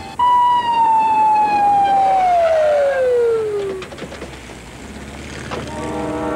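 Ambulance siren winding down: one wail that starts suddenly and falls steadily in pitch over about three and a half seconds, then dies away. A few faint clicks follow.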